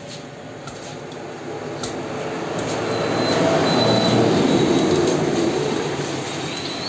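A passing vehicle's rumble swells to a peak about four seconds in, then fades, with a few faint clicks near the start.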